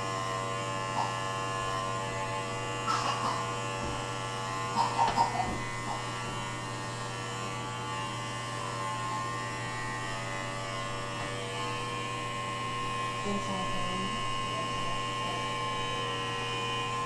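Handheld electric razor running with a steady buzzing hum as it is worked over a man's scalp, with a few brief louder sounds about three and five seconds in.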